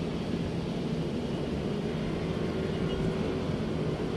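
Steady low drone of running machinery, even and unbroken.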